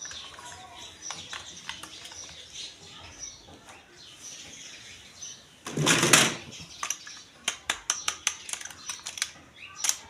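Plastic toy packaging and pieces being handled. Soft rustling gives way to a loud rustle about six seconds in, followed by a quick run of sharp plastic clicks and taps.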